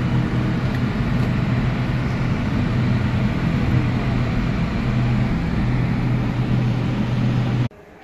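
Steady engine hum and road noise of a vehicle driving, heard from inside the cabin; it cuts off abruptly near the end.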